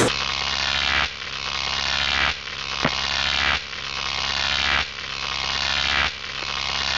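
Edited-in electronic sound effect: a hiss that builds and drops off about every 1.25 seconds, over a steady low hum, with one short click about three seconds in.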